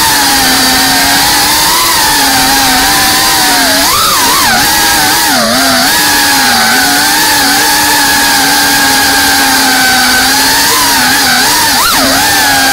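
FPV drone's brushless motors whining steadily over a rushing hiss. The pitch dips and swoops briefly a few times, most around four to six seconds in and again near the end, as the throttle is changed.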